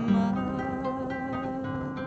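Background music: a slow piece of plucked guitar over held notes, with no singing.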